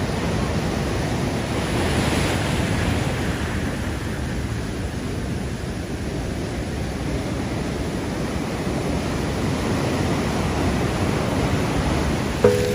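Ocean surf from a typhoon swell: a steady rush of breaking waves and washing water, swelling briefly about two seconds in, with some wind on the microphone.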